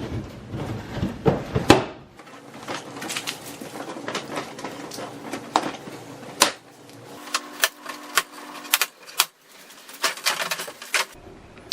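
Plastic pressure clips and the plastic bumper cover of an Acura TL clicking and snapping as the bumper is worked loose from the fender, with light rustling between the irregular clicks.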